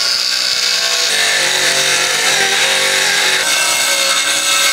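Handheld circular saw running and cutting through a plywood sheet, its pitch changing about a second in and again near the end.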